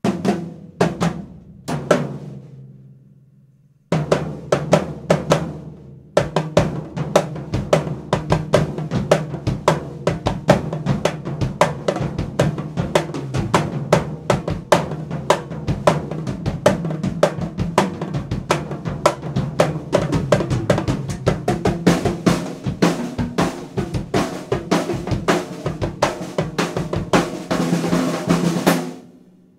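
DW acoustic drum kit played fast: a few ringing hits at first, a short break, then a continuous dense run of snare, tom and bass-drum strokes with a cymbal wash building near the end before it cuts off.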